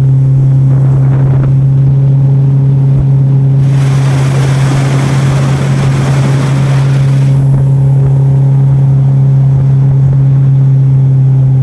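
Outboard motor of a jon boat running at a steady cruising speed, holding one constant pitch. A rushing hiss of wind and water swells over it from about four to seven seconds in.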